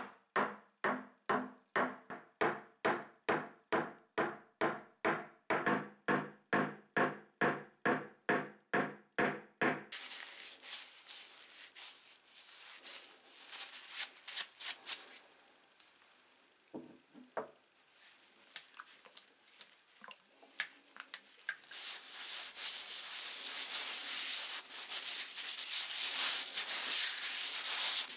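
Soft-faced mallet tapping steadily at about two and a half blows a second, seating the wooden handle on the drawknife's tang. About ten seconds in the tapping stops and hand rubbing over the wooden handle takes over: scattered scrapes at first, then a steady rub near the end.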